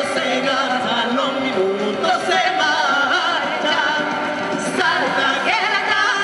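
A woman and a man singing a song live into microphones, the melody running on without a break.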